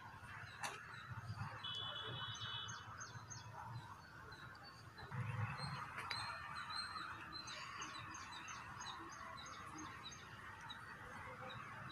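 Outdoor background of small birds chirping in short, repeated high notes over a steady hiss, with occasional low rumbles.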